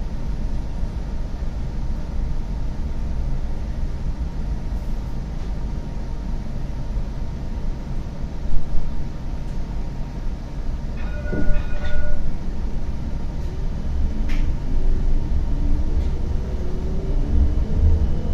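CAF Urbos 100 tram running on its rails with a steady low rumble, a couple of knocks around the middle and a brief beeping tone. Near the end the traction motors' whine rises in pitch as the tram accelerates.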